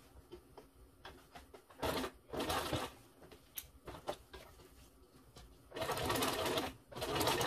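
Sewing machine stitching a zipper into leatherette in short runs: two brief bursts about two seconds in, then a longer run starting near the end. Light clicks come in between.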